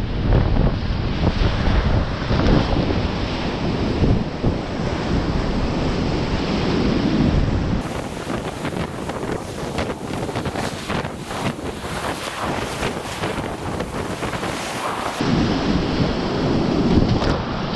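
Whitewater rapids of the Upper Oetz at a gauge of 108 cm, rushing and churning around a kayak, with wind noise on the microphone. For several seconds in the middle the sound turns thinner and hissier.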